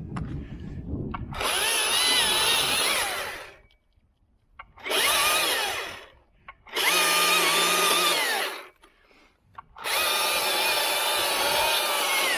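Chainsaw cutting into white oak wood in four bursts, its pitch wavering as it works, dropping away to near silence between bursts.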